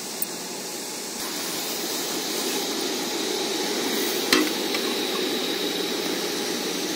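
Sugar syrup boiling in a large pot, a steady hiss and bubbling, with one sharp click about four seconds in.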